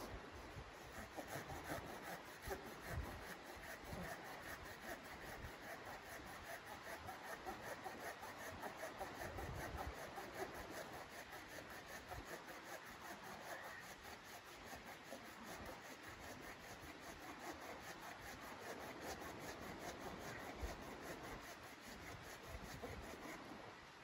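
Hand pruning saw cutting through a log of firewood, a steady run of back-and-forth strokes.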